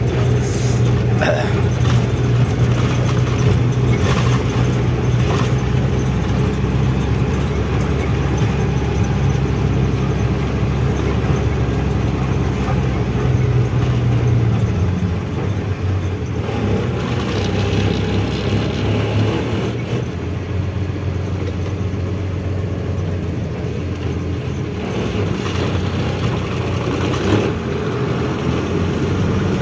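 A 12-wheel truck's diesel engine runs steadily while the truck is driven on the road. Its note drops a little about halfway through.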